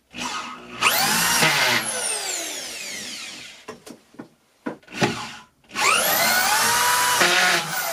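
DeWalt DW272 corded drywall screw gun driving fine-thread screws through ceiling drywall into metal hat channel, twice. Each time the motor whines up to speed, drives the screw and then winds down with a falling pitch. A few sharp clicks fall between the two.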